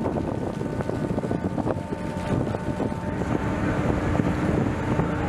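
A boat's engine running steadily, with wind buffeting the microphone.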